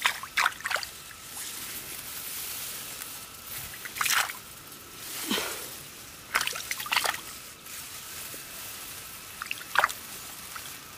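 Water sloshing and splashing in a string of short, separate splashes, with quieter dripping and trickling between them.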